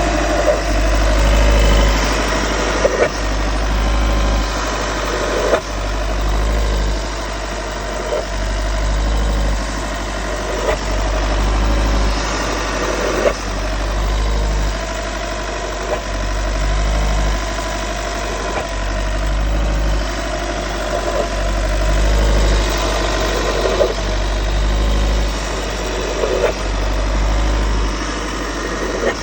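Volkswagen T6 van running, a low pulsing rumble, with a short sharp click or knock recurring about every two and a half seconds: the unexplained noise its owner is asking about.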